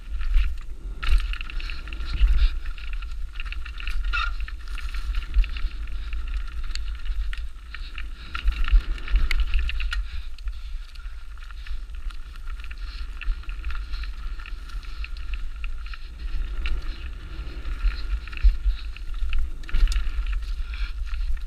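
2008 Specialized Demo 8 downhill mountain bike running down a rough trail: tyres on dirt and a steady clatter of chain and frame over bumps, with wind rumbling on the microphone.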